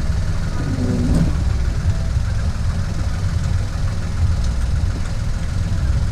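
An engine idling steadily, a continuous low drone with no change in speed.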